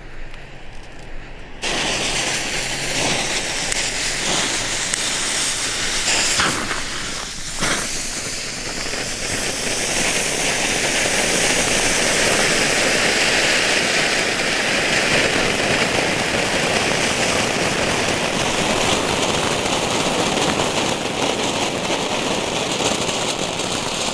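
Four small category F1 firework ground fountains ('volcanoes') lit together. They catch about a second and a half in and spray with a loud, steady hiss, with two sharp cracks around six to eight seconds in, easing slightly toward the end.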